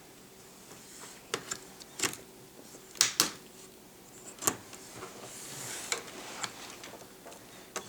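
Plastic snap clips of an HP Pavilion DV6 laptop's screen bezel clicking loose as the bezel is pried away from the lid, a string of sharp, irregular clicks with a soft scrape about five seconds in.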